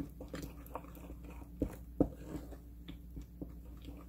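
Wooden spoon stirring thick gochujang seasoning paste in a small ceramic bowl: irregular sticky, wet clicks and squelches, with two louder clicks about a second and a half and two seconds in.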